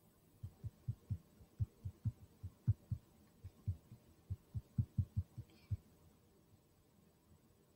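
A run of soft, low thumps, about three or four a second and unevenly spaced, starting about half a second in and stopping at about six seconds.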